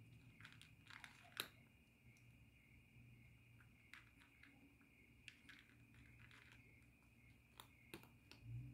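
Feral cat eating from a bowl, faint crunching and chewing with scattered small clicks, a sharper one about a second and a half in and two more near the end.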